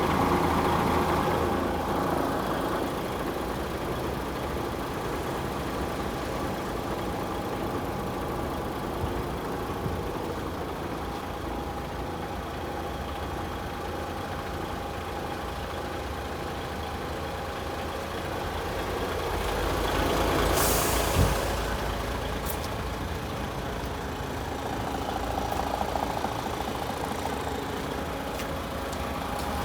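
DAF XF106 tractor unit's Paccar MX-13 six-cylinder diesel idling steadily. About twenty seconds in there is a loud hiss of released air, ending in a knock.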